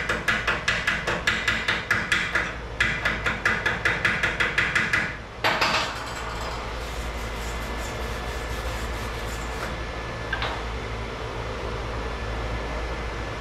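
Wire-feed welder's arc on a steel exhaust pipe joint, crackling in rapid, evenly spaced pops of about seven a second, in two runs with a brief break. A short loud burst comes about five seconds in, followed by a steady hiss.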